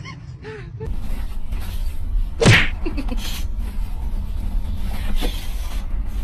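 Steady low rumble of a car's cabin on the move, starting about a second in, with one short loud burst about two and a half seconds in.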